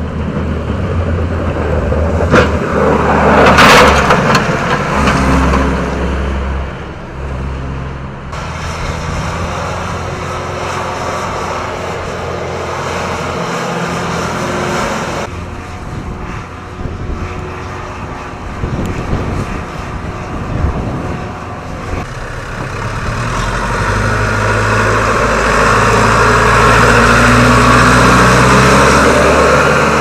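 Snow plows working a snow-covered road. A plow truck's engine runs with a brief loud rush about three to four seconds in. Later a tractor with a front plow blade runs, its engine growing louder over the last several seconds as it passes close by.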